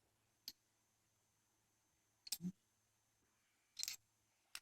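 A few faint, scattered metallic clicks from steel handcuffs being handled, with a soft knock among them a little after two seconds and a short cluster near the end.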